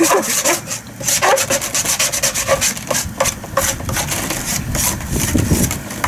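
Metal hand scraper scraping hardened foamed gum rosin off a freshly paraffin-dipped wooden hive box, in quick, irregular strokes.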